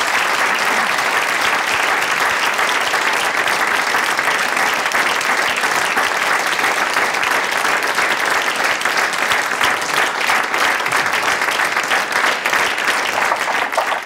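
Studio audience applauding steadily, a dense patter of many hands clapping at the close of the show.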